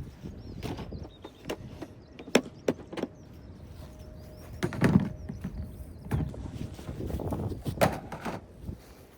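A series of irregular knocks and clacks, the loudest about five seconds in and another sharp one near eight seconds, over a low rumble.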